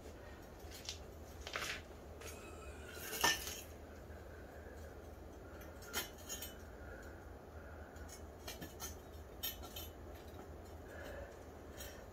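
Faint, scattered metal clinks and taps as the steel tubes of a shopping-cart frame are handled and lined up against each other; the sharpest clink comes about three seconds in.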